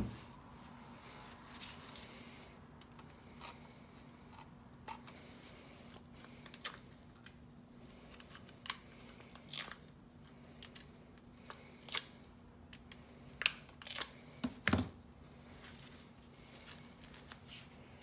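Matted hair being cut and pulled off a robot vacuum's brush roll: irregular short snipping, tearing and scraping sounds, with a cluster of louder ones about three-quarters of the way through. A faint, steady low hum runs underneath.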